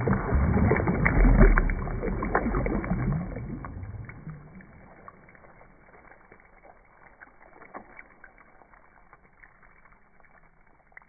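Water splashing and churning as an object plunges in, with a deep rumble, fading over about four seconds into faint bubbling and scattered ticking crackles.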